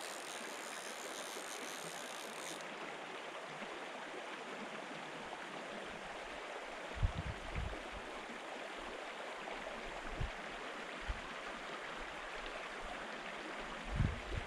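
Small stream running steadily over a shallow stony riffle, a constant rush of water. A few low thumps come through about halfway and again near the end.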